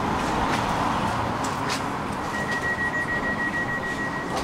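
Tram door-closing warning: a high beeping tone starts about halfway through and keeps going, over the steady hum of the tram standing at the stop. A few light clicks come before it.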